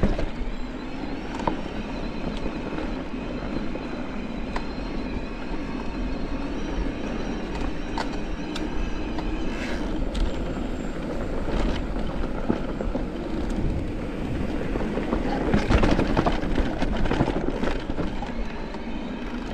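Mountain bike rolling down a dirt singletrack: steady tyre and trail noise with short rattles and knocks from the bike going over bumps. It grows louder for a stretch about three-quarters of the way through.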